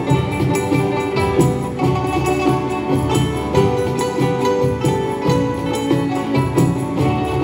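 Live traditional music: plucked pipa and guzheng notes over hand-struck frame drums keeping a steady beat.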